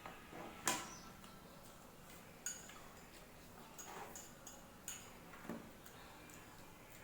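Scattered light clicks and taps of tableware, like utensils against dishes, with one sharper knock about a second in.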